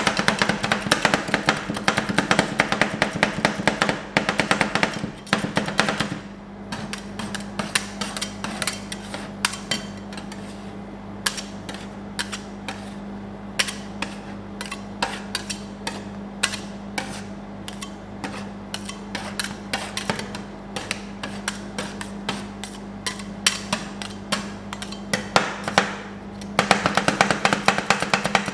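Two metal spatulas chopping and tapping on a steel rolled-ice-cream cold plate, a fast clatter of metal strikes through the ice cream mixture. About six seconds in the clatter thins to scattered taps and scrapes, then turns fast again near the end. A steady low hum runs underneath.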